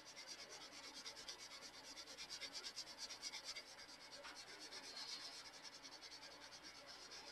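Colored pencil scratching faintly on paper in rapid, even back-and-forth shading strokes, laid down with light pressure.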